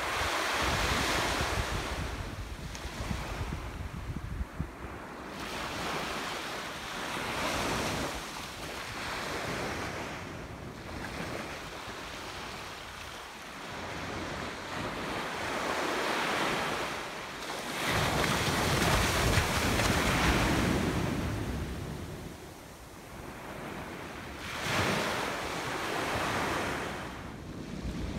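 Small ocean waves breaking and washing up on a sandy beach, the surf swelling and fading every several seconds. Wind buffets the microphone, most strongly past the middle.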